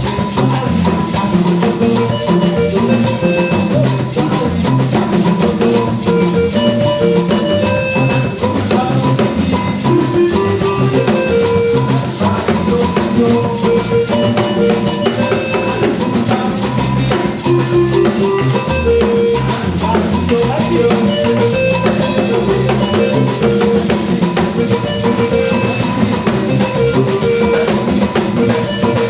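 Music: a steady beat with drums and a fast, rattling shaker-like percussion, and short repeating pitched notes underneath.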